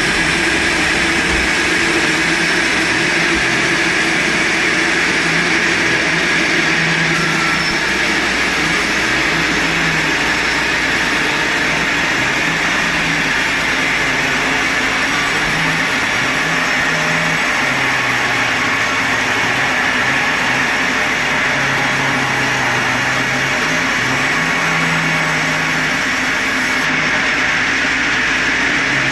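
Sawmill running loudly and steadily without a break, with a dense cutting noise over a low machine hum that shifts in pitch now and then, as the saw works through hard jamaloi wood.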